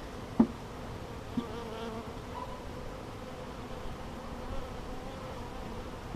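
Many honeybees buzzing steadily around the hive as they are installed, a wavering hum. A sharp knock sounds about half a second in and a lighter one about a second later.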